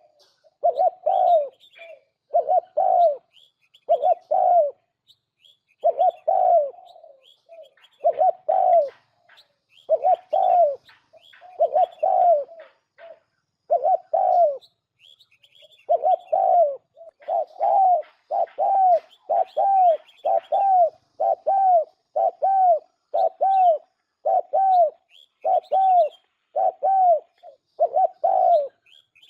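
Spotted dove (cu gáy) cooing: the lure call used for trapping doves, a steady run of short coos about one a second with a few brief pauses. Faint high chirps of small birds sound above the coos.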